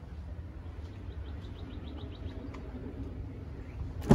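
A small bird's rapid ticking trill, about eight ticks a second for a little over a second, over a steady low background hum. Right at the end comes a single sharp knock, the loudest sound.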